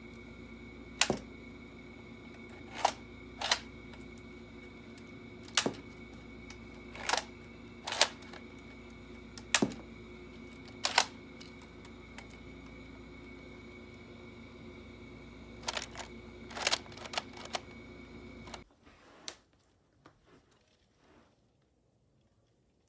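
Sharp plastic snaps from a LEGO replica AUG gun's mechanism being worked by hand, about a dozen single clacks, some in quick pairs, over a steady electrical hum. The hum cuts off about three-quarters of the way through and a few faint clicks follow.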